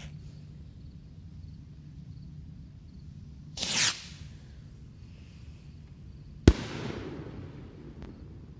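Consumer firework going off: a short hissing rush about three and a half seconds in, then a few seconds later a single sharp bang from an aerial burst, followed by a rumbling echo that dies away.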